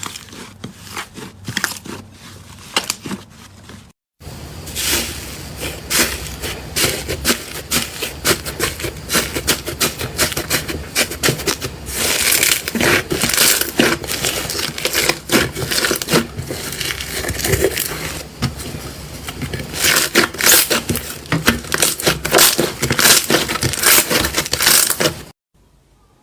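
Slime being squeezed and pressed, making a dense run of sticky clicks and crackles. The sound breaks off briefly about four seconds in and again near the end, where one slime clip cuts to the next.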